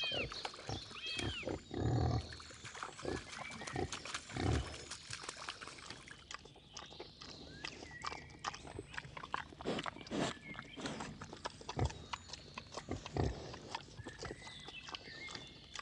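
Wild boar grunting and snuffling while rooting with its snout through leaf litter and mud, with the dry rustle and crackle of leaves. A few short grunts come in the first five seconds; after that it is mostly rustling and snuffling.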